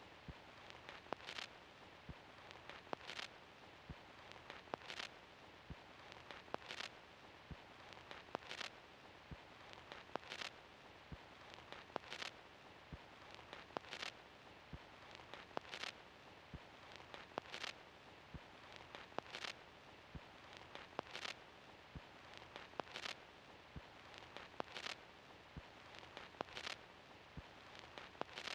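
A turntable stylus riding the run-out groove of a vinyl LP after the music has ended. There is steady surface hiss, with a sharp click about every 1.8 seconds, once per turn of the record at 33⅓ rpm, and fainter ticks in between.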